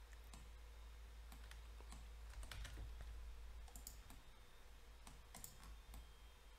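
Faint, scattered clicks of a computer mouse and keyboard (button presses, scroll-wheel turns and keystrokes) over a low, steady hum.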